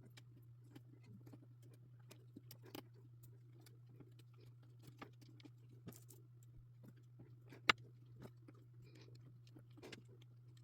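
Faint, scattered small clicks and taps of jumper wires being handled and pushed into a breadboard, with one sharper click about three-quarters of the way through, over a low steady hum.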